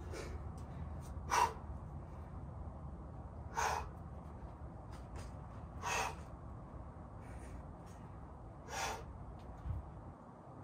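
A boulderer breathing hard under strain: four short, sharp exhalations a couple of seconds apart, forced out with the effort of hard moves.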